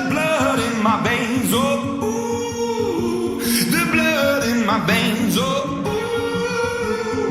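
Music with singing: a voice sustaining and sliding between notes over held chords and a recurring beat.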